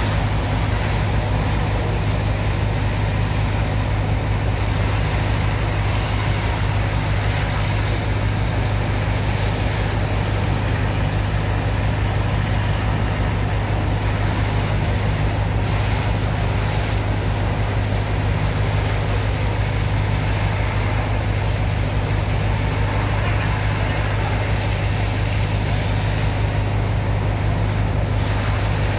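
Steady low drone of the engine driving the sand-unloading pump, running without change, with water hissing and splashing from hoses as sand is washed into slurry.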